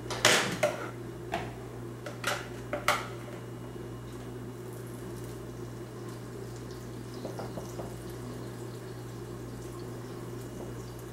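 A few sharp knocks and clatters in the first three seconds, then a steady hum. Under the hum, beaten egg and chopped chard mixture is poured from a plastic bowl into an electric omelette maker, a faint liquid pouring sound.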